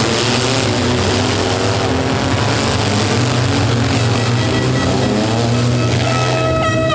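Demolition derby vans' and trucks' engines revving and running together, loud and continuous. A steady horn blast starts near the end.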